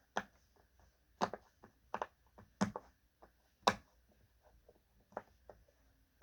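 Silicone pop-it fidget toy being pressed, its bubbles popping one after another as short, sharp pops at an irregular pace, some louder than others.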